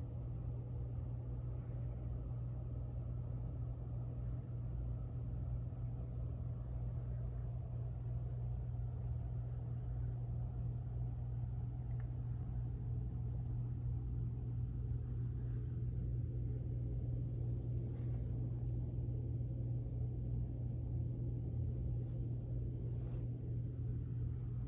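Denon DSW-S302 powered subwoofer playing a steady, deep bass rumble with no beat or change in pitch.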